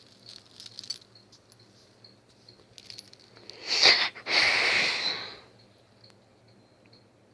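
Small dog snoring in its sleep: one loud wheezy snore about four seconds in, a short burst then a longer rasping breath of about a second.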